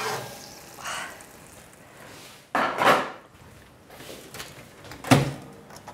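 Kitchen handling noises as a ceramic baking dish is taken out of the oven and set down on the stove: a few separate scrapes and clatters, the loudest a sharp knock near the end.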